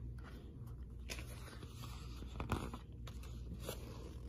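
Faint rustling and a few soft taps of a paper picture book's page being turned by hand, over a low steady room hum.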